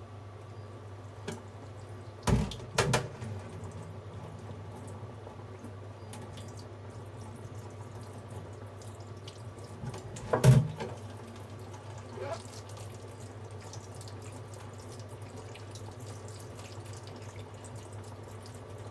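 Pot of water boiling with rice-flour dumplings cooking in it, a faint bubbling over a steady low hum. Two knocks come a couple of seconds in, and a louder clunk about ten seconds in.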